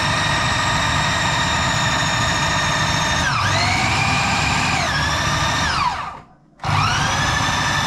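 Electric food processor motor running at speed, mixing a thick raw fish-cake mixture, with a steady whine. Its pitch sags twice around the middle of the run. It is switched off for about half a second roughly six seconds in, then starts again.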